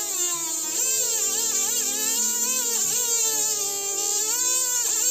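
BG W-05 battery electric mini-grinder with a small cutting disc whining as it saws into a wooden twig, its pitch wavering and dipping repeatedly as the disc bites.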